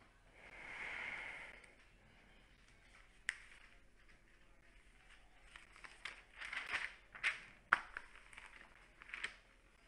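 Newspaper pages being turned by hand: a soft swish about a second in, then a run of paper rustles and crinkles, thickest in the second half.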